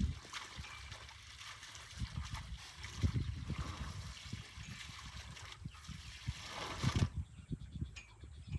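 Water trickling and splashing as an African elephant's trunk works in a shallow waterhole, with uneven dull low knocks, loudest about three and seven seconds in.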